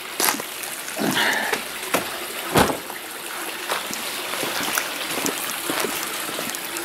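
Footsteps on wet concrete paving, a scuff or knock about once a second over a steady hiss.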